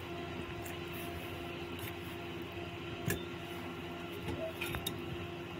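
Fish curry soup simmering in a pan, a steady hiss with a faint constant hum, and one light metal clink about three seconds in as fish pieces are laid into the pan with tongs.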